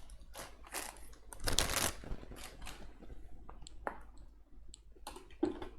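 Rustling and light clicks of small accessories and their packaging being handled on a workbench, with the loudest rustle about a second and a half in.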